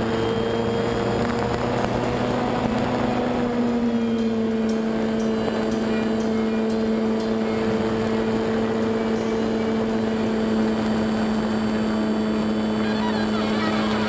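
Radio-controlled model airplane's motor and propeller running steadily at cruising throttle, heard close up from a camera mounted on the plane: a steady drone whose pitch rises slightly a couple of seconds in, then holds.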